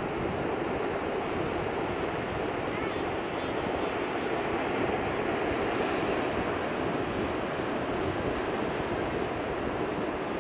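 Ocean surf washing onto the beach in a steady, continuous rush, with wind buffeting the microphone.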